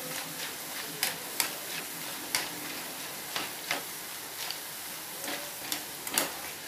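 Boondi (gram-flour batter drops) deep-frying in hot oil in a steel kadai: a steady sizzle with a handful of sharp, irregular clicks and pops.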